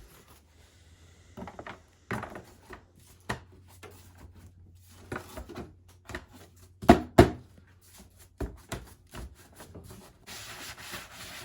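Handling noises: scattered clicks and knocks, two sharper knocks in quick succession about seven seconds in, and a rubbing noise near the end, over a faint steady low hum.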